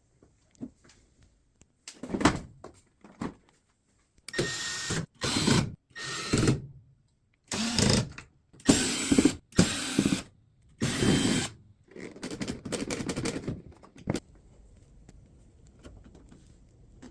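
Power drill/driver run in a series of short bursts, about ten of them over twelve seconds, the last one longer and steadier.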